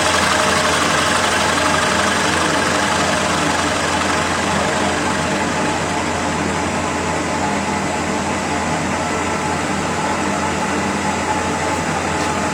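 CNC wood lathe running while turning a large wooden bowl: a steady motor hum under a broad cutting hiss, the highest part of the hiss easing off about halfway through.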